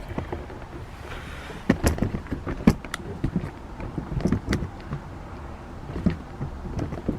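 Bags and household items being shifted about by hand: a run of irregular knocks, clunks and rustles, busiest in the middle, with a few more knocks near the end.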